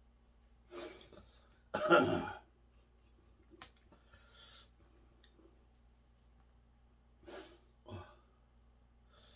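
A man clears his throat, then coughs loudly about two seconds in. A single sharp click of chopsticks follows, and two short breathy sounds come near the end.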